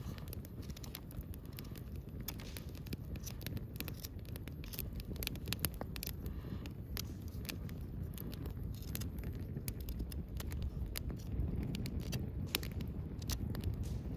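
Open wood campfire crackling with many sharp, irregular pops as makkara sausages grill over it, above a steady low rumble.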